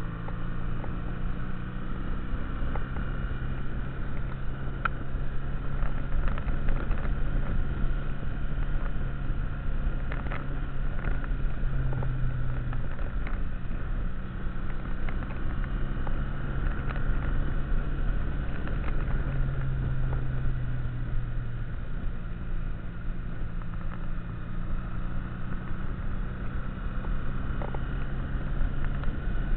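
Motorcycle engine running steadily at cruising speed under wind rush on the microphone, its note swelling a few times as the throttle changes.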